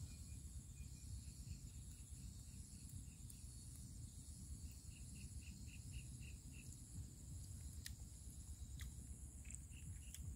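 Faint outdoor insect buzzing, steady and high. In the middle comes a run of short chirps, a few a second. A low rumble sits underneath, and a couple of sharp clicks come near the end.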